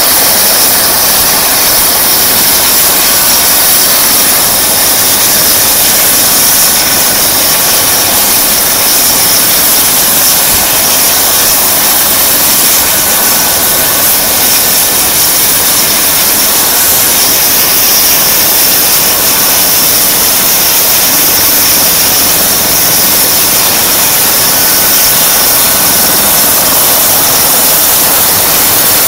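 Eurocopter EC135 P2 helicopter running on the ground before lift-off: its twin turboshaft engines and turning main rotor make a loud, steady turbine whine and hiss that does not change.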